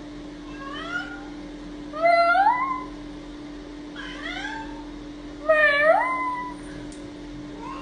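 Long-haired cream cat meowing over and over, four or five separate meows that each rise in pitch. The loudest come about two and six seconds in.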